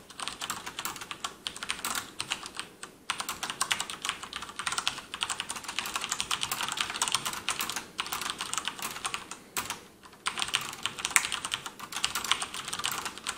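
Fast continuous typing on a Perixx PX5200-BR mechanical keyboard with Cherry MX Brown switches: soft, rapid keystrokes with no click, broken by a few short pauses.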